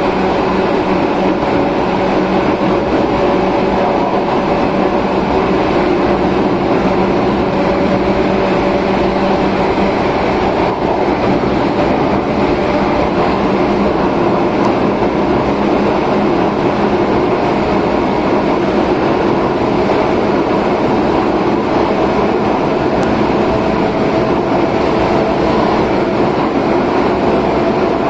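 Running sound inside an Izukyu 8000 series electric train car at steady speed: rumbling rolling noise with a low, steady hum of several tones from the Hitachi-made drive equipment. The upper tone edges slightly higher about two-thirds of the way through.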